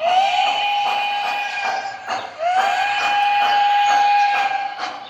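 A model train locomotive's onboard sound system blowing a steam whistle: two long blasts, each sliding up to pitch as it starts, the second starting about halfway through. A regular ticking runs underneath.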